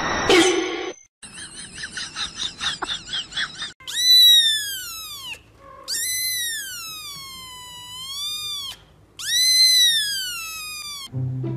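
A grey-and-white kitten meowing: a string of short, squeaky mews, then three long, loud, high-pitched cries that dip and rise in pitch. A brief sharp noise comes at the very start.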